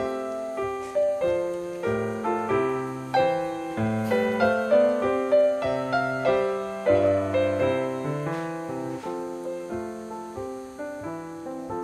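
Background piano music: a melody of struck notes over lower bass notes.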